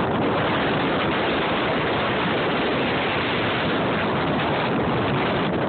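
Steady wind noise on a phone's microphone.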